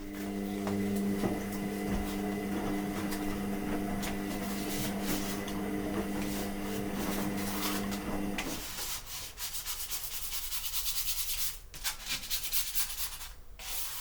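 A scraper rubbing softened adhesive residue off a steel 3D-printer build plate. A steady hum accompanies the scraping and cuts off suddenly about two-thirds of the way in. The scraping then continues as quick, rasping strokes.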